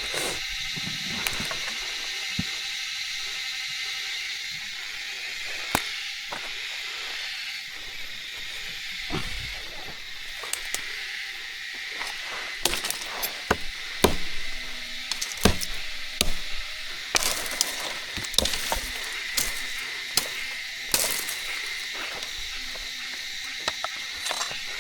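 Steady high-pitched drone of forest insects, with scattered sharp snaps and crackles that come thickest through the middle and later part.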